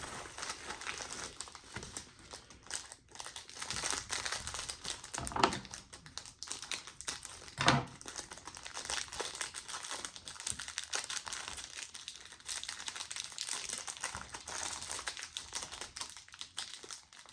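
A small plastic package being opened by hand, crinkling and rustling irregularly, with two louder crackles about five and eight seconds in.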